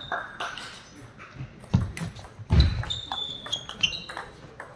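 A few sharp knocks, a heavy thump about two and a half seconds in, and several short high squeaks a little later.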